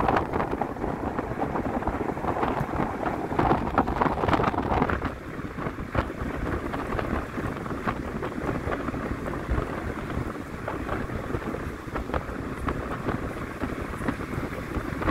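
Moving bus: wind rushing and buffeting at the side window over the engine and road noise, with scattered rattles and knocks. It eases a little about five seconds in.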